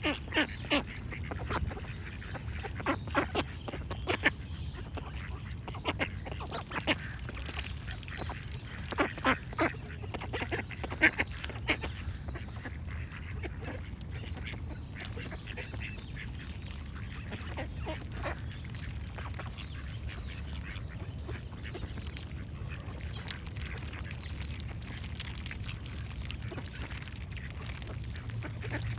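Ducks quacking, in short runs through roughly the first twelve seconds and only now and then after that, with small birds singing faintly over a steady low background hum.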